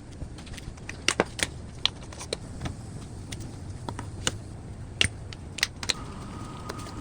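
Irregular metallic clicks and clinks of tools and plumbing parts being handled during a water softener installation, a few of them sharp knocks, over a steady low hum. A faint steady tone comes in near the end.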